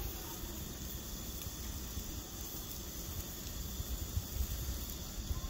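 Outdoor ambience: an irregular low rumble under a steady high-pitched hiss, with no distinct events.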